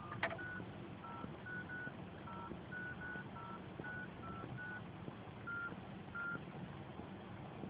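Faint series of short electronic keypad beeps at a few different pitches, about two a second, like phone dialing tones, with a single click just after the start.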